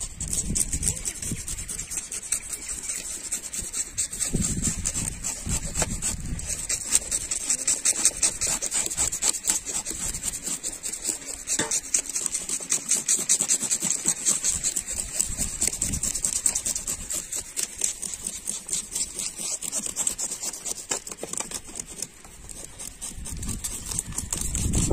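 Knife scraping the scales off a whole pomfret: a fast, continuous run of short rasping strokes.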